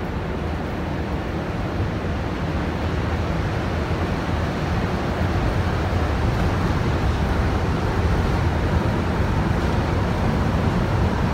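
Rubber-tyred Montreal Metro train running, heard from inside the car: a steady rumble and hiss that slowly grows louder as the train pulls away and picks up speed.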